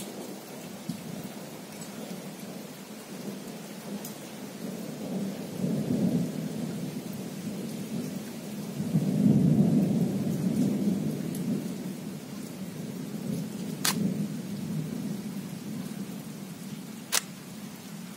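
Rolling thunder rumbling over steady rain, swelling twice and loudest in the middle before it fades. Two sharp ticks sound near the end.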